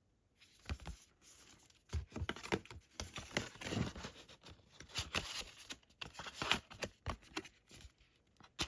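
Handling noise from a Blu-ray steelbook box set being handled: irregular light clicks, scrapes and rustling of paper and card.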